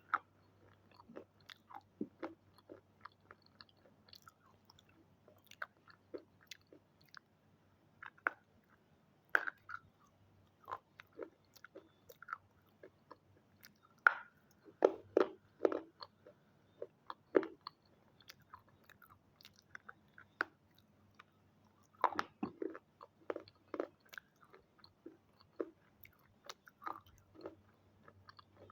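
Close-up crunching and chewing of the red triangle-shaped pieces: irregular sharp crunches, some in quick clusters, with softer chewing crackles between, over a faint low hum.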